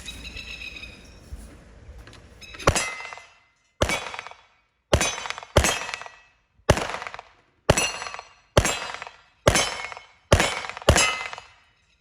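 Pistol fired ten times in a string starting a couple of seconds in, about one shot a second, each sharp crack trailing off in a short echo.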